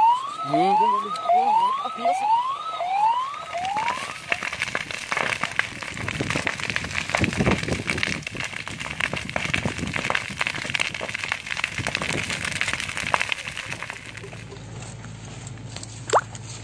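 A siren sounds in quick rising whoops, about two a second, for the first few seconds. Then comes dense crackling and popping from dry grass and brush burning in a wildfire, lasting about ten seconds. After that a low steady hum takes over, with one brief sharp blip near the end.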